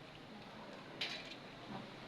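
A single sharp click about a second in, then a softer, duller knock shortly after, over faint room noise.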